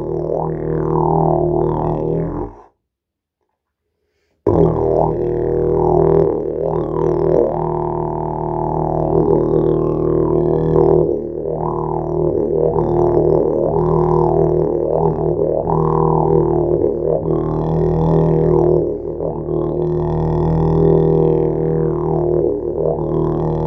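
A 9 ft, 15 kg didgeridoo playing a steady low drone, its tone sweeping up and down again and again. The sound cuts out completely about two and a half seconds in and resumes about two seconds later.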